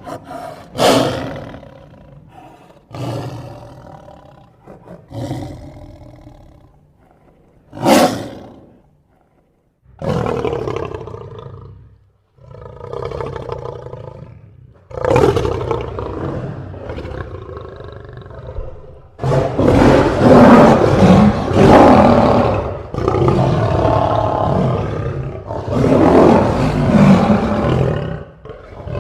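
Lion roaring and growling: several short, separate calls in the first ten seconds, then longer roars. The last third is the loudest, with almost unbroken roaring.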